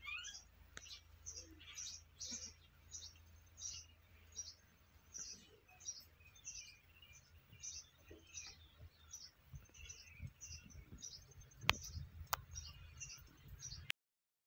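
Bird chirping repeatedly, short high chirps about twice a second, over a low steady hum. There are two sharp clicks about twelve seconds in, and the sound cuts off just before the end.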